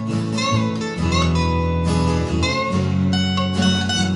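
Small guitar band playing an instrumental passage: strummed acoustic guitars, a picked lead guitar line with held notes, and a bass guitar underneath.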